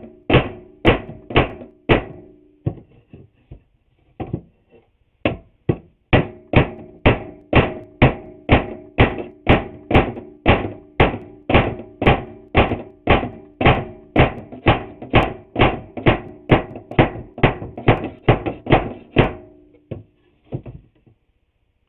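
A hammer striking glued-up wooden trim boards, a quick series of blows, a short pause with a few scattered strikes, then a long steady run of about two blows a second that stops near the end. Each blow rings briefly with a hollow wooden note, the sound of tapping the glued board edges into line so the joint sits flat.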